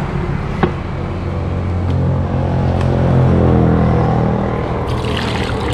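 A motor vehicle engine drones steadily, its pitch rising and swelling around the middle and then easing off. About half a second in there is one sharp knock: a machete chopping into a young green coconut.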